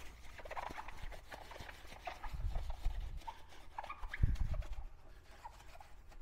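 A sponge scrubbed over a foam-covered alloy wheel rim: irregular short wet squeaks and rubbing, with two dull low thumps about two and a half and four seconds in.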